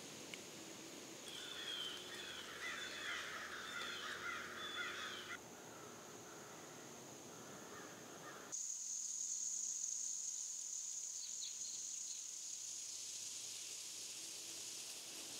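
Outdoor woodland ambience: a steady high-pitched hiss, with a quick run of bird calls between about one and five seconds in. The sound changes abruptly twice, and the hiss is louder in the second half.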